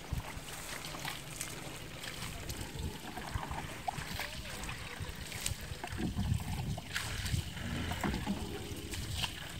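Water poured from a bucket splashing and trickling onto a lying elephant's hide and into the mud beneath it, over an uneven low rumble.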